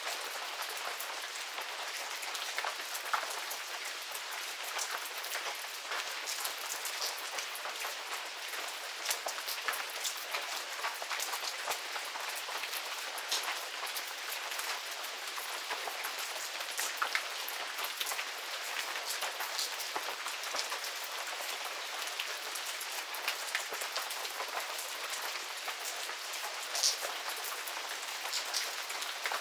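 Medium rain falling steadily in a garden, a constant hiss with many individual drops pattering and ticking sharply on nearby surfaces.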